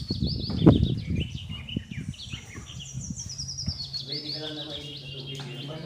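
A small bird singing: a quick series of high chirps that falls in pitch, heard twice. Under it, near the start, come the rustle and knocks of dishes and a plastic table cover being handled, the loudest knock under a second in, and a low steady hum begins in the second half.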